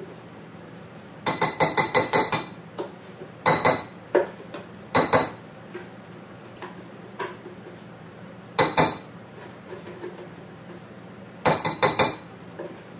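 A metal utensil clinking and knocking against a Vitamix blender jar and a glass bowl while thick blended ice cream is scooped out. The strikes come in quick rattling clusters of sharp, ringing clinks, about eight in a row a second in and another cluster near the end, with single knocks in between.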